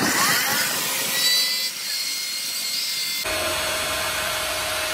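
Angle grinder grinding a steel shaft as it turns in a lathe, a high whine over a grinding hiss. About three seconds in, the sound changes abruptly to a steadier, lower hum over a rumble.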